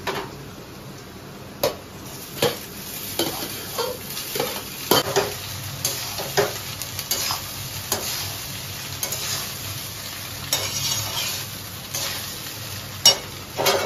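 Metal spatula scraping and clinking against a steel wok at an irregular pace as fried rice is stirred and tossed over a steady sizzle.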